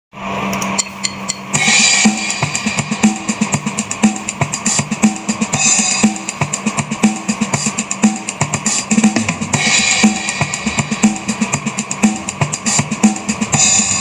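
Background music with a steady drum-kit beat of about two strokes a second and a cymbal crash about every four seconds.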